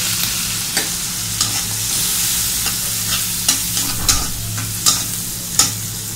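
Shrimp and chopped onions frying in oil in a kadai, with a steady sizzle. The mixture is being stirred, and the stirring utensil knocks against the pan about once a second.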